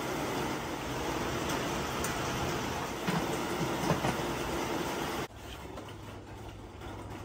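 Crab sticks sizzling in hot oil in a deep metal pot, a steady hiss, with a few clinks of metal tongs against the pot about three to four seconds in. The sizzle drops away suddenly about five seconds in, leaving a quieter hiss.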